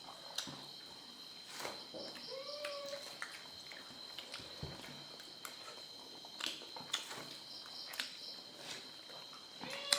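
A house cat meows once, a short call about two and a half seconds in, among scattered light clicks.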